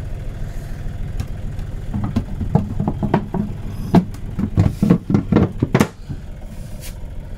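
Boat's engine idling steadily underneath, with a run of knocks and clatter from about two to six seconds in as the lid of the battery compartment is closed and handled.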